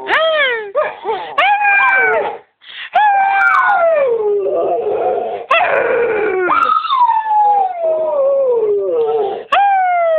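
Dog howling: a series of long pitched howls, each sliding down in pitch, with short breaks between them.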